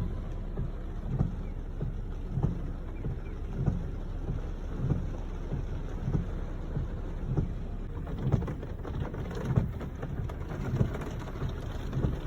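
Heavy typhoon rain and wind noise with a steady low rumble, and a low thump about every second and a quarter.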